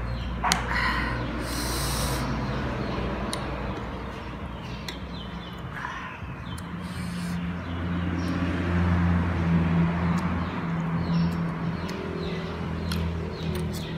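Eating sounds: chewing sour lemon slices dressed with chili salt, with scattered sharp clicks of a metal spoon and fork against the plate. Under them runs a low steady hum that grows louder about eight seconds in.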